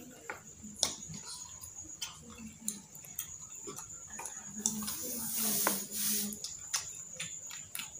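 Eating sounds: irregular clicks and taps of metal forks spearing street food in a plastic tub and on a banana leaf, with chewing.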